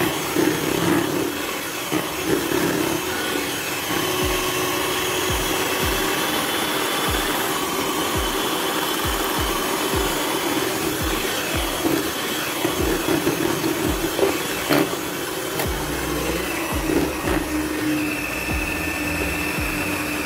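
Miyako electric hand mixer running steadily, its beaters whipping thick egg-and-sugar cake batter in a bowl as melted margarine is mixed in, with regular low knocks through the middle of the stretch.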